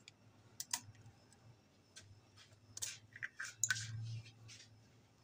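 Eggshell clicking and crackling as a hen's egg is cracked and pulled apart by hand over a glass bowl: a couple of sharp clicks near the start, then a cluster of crackles and taps about three seconds in.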